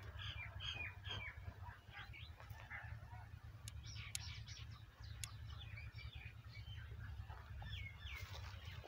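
Birds chirping, many short high calls in quick succession, over a steady low rumble.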